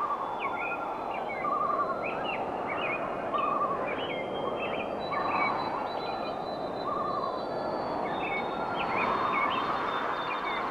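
Several birds calling over a steady rushing background noise: many short, quick chirps, and now and then a short warbling call lower in pitch.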